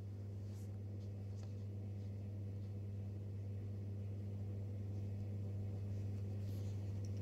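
Steady low electrical hum, with a few faint soft rustles as a knitted spacer fabric is pressed by hand.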